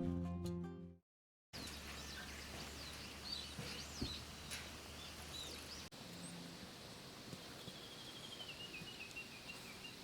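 Guitar background music fading out, then after a brief silence, outdoor ambience of steady hiss with birds calling: several short chirps, then one rapid warbling trill in the last couple of seconds.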